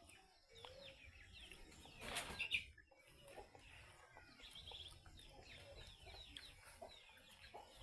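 Domestic chickens clucking faintly, with many short, falling high chirps from about three seconds on. A brief louder noise comes about two seconds in.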